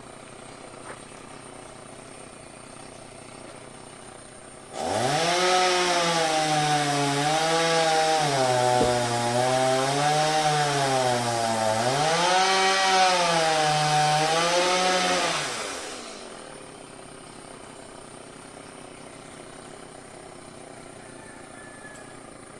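Chainsaw revved up suddenly about five seconds in and held at high speed for about eleven seconds, its engine pitch repeatedly dipping and rising, then falling away.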